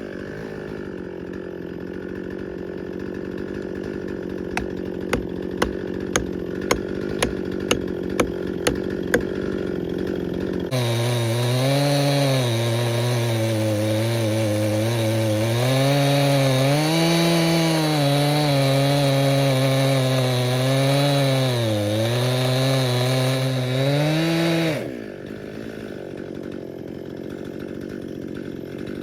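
Stihl MS261 C chainsaw with an 18-inch bar and ripping chain on a chainsaw mill, idling with a quick run of about nine sharp clicks, two or so a second. About a third of the way in it runs at high speed under load ripping through a cherry log, its pitch sagging and recovering as it cuts, then drops back to idle near the end.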